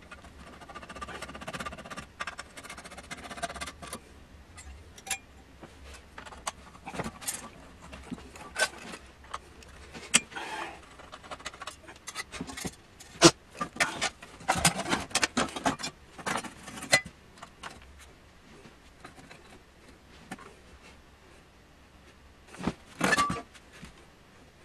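Irregular metallic clicks, knocks and rattles as the metal chassis and parts of a Quantel Paintbox power supply unit are handled and worked with a screwdriver. The loudest knocks come about halfway through, with a short burst of rattling near the end.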